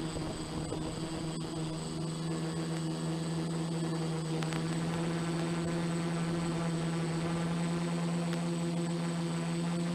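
F450 quadcopter's motors and propellers buzzing steadily in flight, a constant pitched hum that wavers slightly in pitch as it holds position and drifts.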